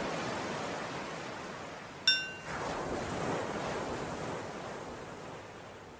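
Ocean waves washing in and fading, with a single small bell struck once about two seconds in and ringing out briefly: the cue to switch between breathing in and breathing out.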